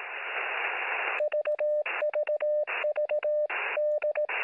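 Radio static hiss for about a second, then a steady beeping tone keyed on and off in short and long pieces, broken by bursts of static: Morse code heard through a radio receiver.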